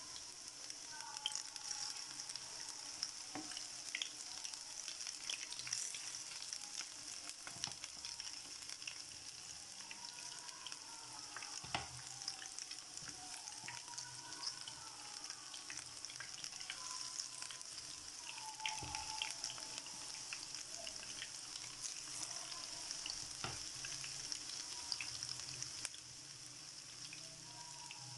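Besan-battered pakoras deep-frying in hot oil: a steady sizzle with scattered crackles and pops.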